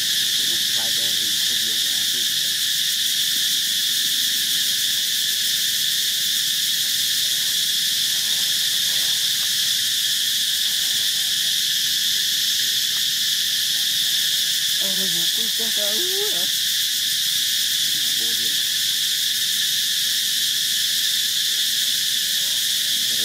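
Steady, high-pitched chorus of forest insects droning at an even level without a break.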